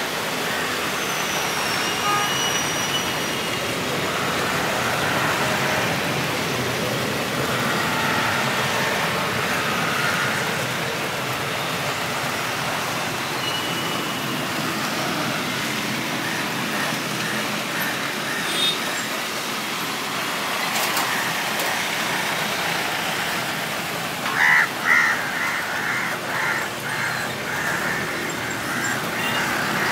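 Steady wash of heavy rain mixed with the distant running of jet airliner engines on an airport apron. Thin high whistling tones come and go in the first few seconds, and a brief run of sharp high pulses sounds about 24 seconds in, the loudest moment.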